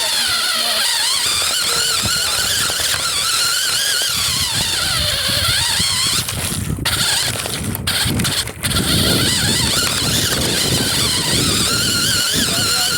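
A 1/5-scale RC car's motor and gears whining, the pitch rising and falling again and again as the throttle is worked. From about four seconds in, a low wind rumble on the microphone joins it, with a few short dropouts near the middle.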